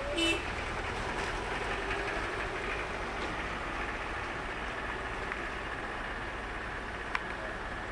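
Steady engine and rushing noise heard from inside a moving vehicle. There is a brief high beep just after the start and a single click about seven seconds in.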